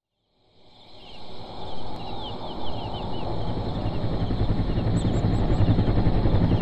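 Wind buffeting the microphone of a camera riding along on a mountain bike on a dirt trail, with the rumble of the ride, fading in about a second in and building to a steady level. Birds chirp over it: a few short falling chirps a couple of seconds in, then a quick run of four high chirps.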